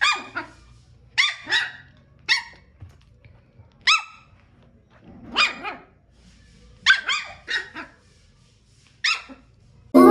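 A dog barking repeatedly, in single barks and quick runs of two to four, about a dozen barks in all.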